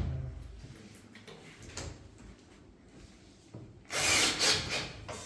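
A rasping scrape lasting about a second, about four seconds in, after a few faint taps.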